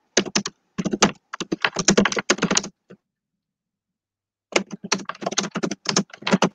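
Typing on a computer keyboard close to the microphone: two spells of rapid key clatter, the first about two and a half seconds long, then a pause of nearly two seconds, then a second spell of about two seconds.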